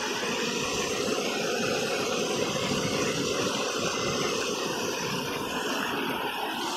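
Shallow river running over stones: a steady rush of flowing water.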